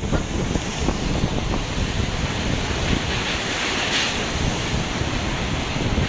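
Rough storm sea surging and breaking against the shore while strong typhoon wind buffets the microphone.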